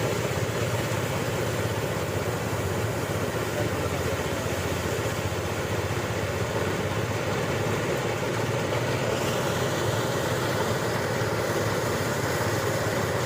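Engine of a rice-harvesting machine running steadily at constant speed, a low, even drone with a noisy clatter over it.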